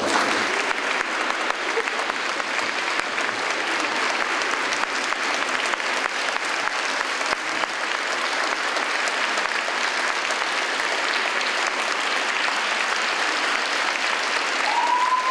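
A large audience applauding: steady, dense clapping of many hands.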